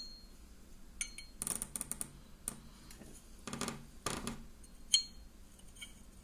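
Light clicks and scrapes of a field-stripped Sig Sauer SP2022 pistol's slide and barrel being handled and turned over, with a sharper click about five seconds in.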